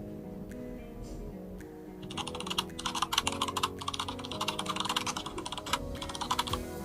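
Computer-keyboard typing sound effect, rapid clicking that starts about two seconds in and stops just before the end, over soft background music.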